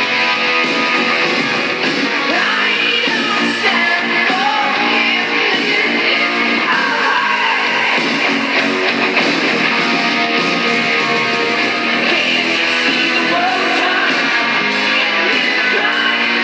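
A song with guitar and a singing voice, loud and continuous.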